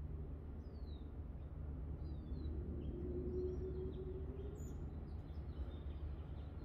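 Outdoor backyard ambience: a few faint, short bird chirps over a steady low background rumble, with a faint hum in the middle.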